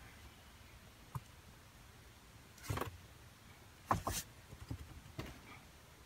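A heavy slate slab being set down onto a wooden table frame: a short scrape, then a sharp pair of knocks about four seconds in, the loudest sound here, followed by a couple of lighter knocks as it settles.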